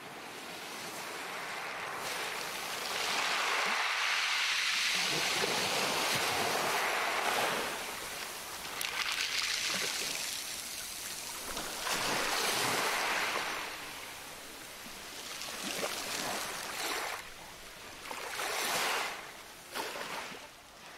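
Ocean surf breaking and washing up the beach, swelling and fading in long surges every few seconds.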